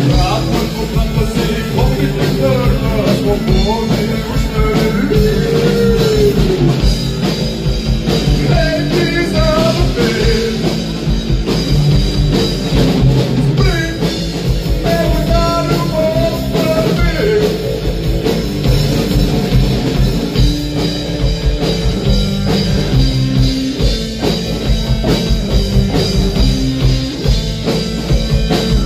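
A rock band playing live: electric guitars and a drum kit, with a male singer over roughly the first half. After that the band plays on without vocals.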